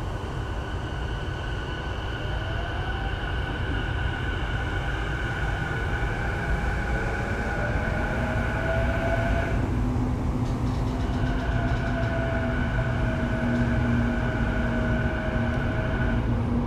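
Sotetsu 12000 series electric train heard from inside a passenger car while under way: a constant rumble of wheels on rail, with the inverter and traction motors giving steady high-pitched tones and a fainter tone that rises in pitch as the train gathers speed. The high tones cut out for about a second and a half near the middle, then return.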